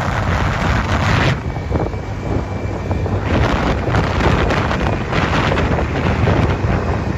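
Wind buffeting the microphone of a phone carried on a moving motorcycle: a loud, rumbling rush of air that eases about a second and a half in and picks up again about three seconds in.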